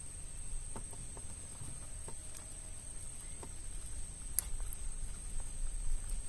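Insects giving a steady, thin high-pitched drone, over a low rumble, with scattered light clicks and knocks as a fishing hand line is handled in a wooden boat. The sharpest click comes about four and a half seconds in.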